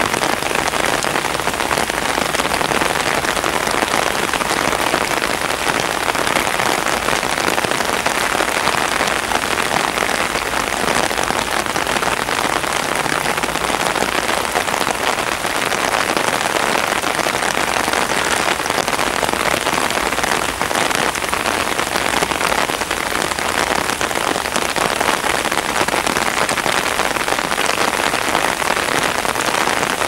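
Rain falling steadily: a loud, even hiss of drops with no break.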